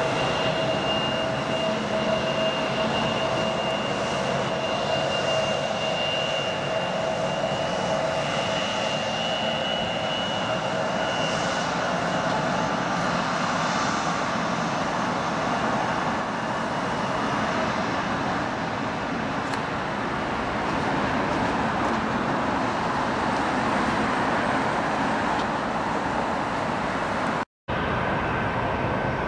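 Bombardier CRJ regional jet's two rear-mounted turbofans running at taxi power: a steady whine over a rushing hiss, the whine fading about halfway through. The sound cuts out briefly near the end.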